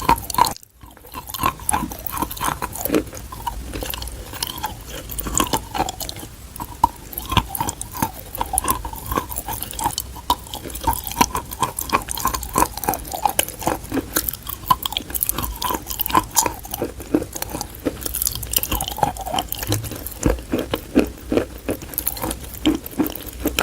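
Dry edible chalk being bitten and chewed: dense, irregular crisp crunches and crackles, with a brief break under a second in.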